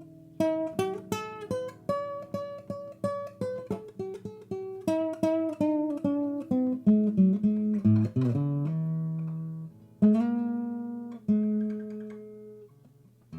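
Acoustic guitar music: a quick run of picked notes that slows after about eight seconds into a few single notes left to ring and fade.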